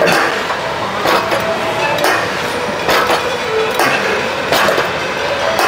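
Leg extension machine's weight stack clinking with each rep, sharp strikes roughly once a second over steady gym background noise.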